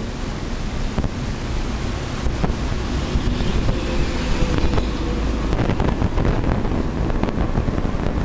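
Manual-transmission car under way, heard from inside the cabin: a steady rush of road and wind noise over a low engine rumble, growing a little louder a few seconds in.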